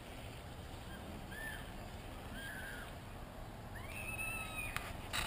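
A few short, high rise-and-fall animal calls, the last one longer, over a low steady rumble.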